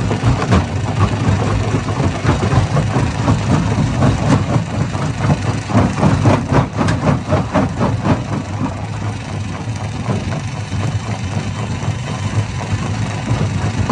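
Hammer-type stone crusher running with a loud steady low drone, with rapid sharp knocks of rock being struck and broken, densest in the middle few seconds.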